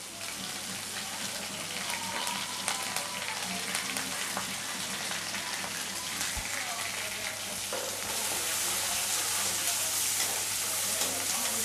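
Chopped onions sizzling in hot oil in a metal kadai, stirred with a slotted metal spoon that clicks against the pan. The frying gets louder about eight seconds in.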